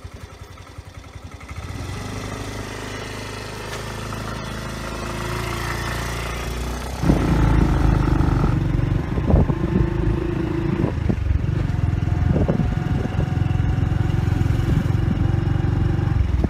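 A Yamaha Filano scooter's single-cylinder engine running and pulling away, its pitch slowly rising. About seven seconds in, the sound gets much louder into a dense low rumble as the scooter rides on.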